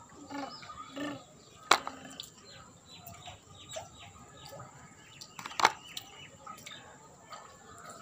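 Hard plastic toy animal figures clicking and knocking together as they are handled, with two loud sharp clacks, about two seconds and five and a half seconds in, and a few lighter ticks.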